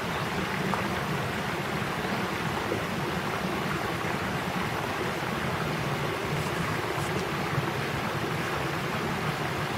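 Steady rushing of flowing river water at a lock.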